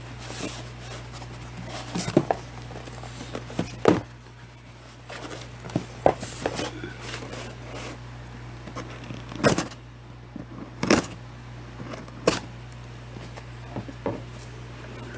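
A cardboard shipping box and its packaging being opened and handled: scattered sharp taps, scrapes and rustles at irregular intervals, over a steady low hum.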